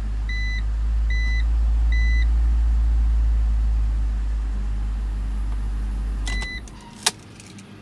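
BMW X3 engine idling, running on the newly fitted ignition switch, while a dashboard warning chime beeps three times at even spacing. About six and a half seconds in, the engine is switched off and stops suddenly with one more chime, followed by a single sharp click.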